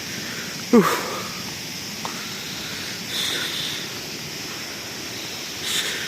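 Steady rushing of a mountain stream. About a second in, a short animal call falls in pitch, and there are a couple of fainter high chirps later on.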